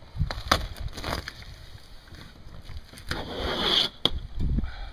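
Thin, water-damaged wooden skin of an RV bunk being peeled and torn off its glued styrofoam core: sharp cracks at first, a long ripping tear about three seconds in, then a crack and a dull knock near the end.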